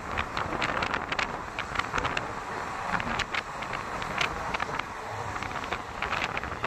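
Moving ICF passenger coach heard from its open doorway: steady train running noise with wind rushing on the microphone, broken by frequent irregular sharp clicks and rattles.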